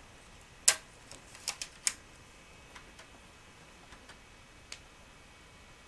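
Sharp plastic clicks and snaps of a CD being loaded into the HP Pavilion ZE4600 laptop's optical drive: five in quick succession about a second in, then a few fainter ticks.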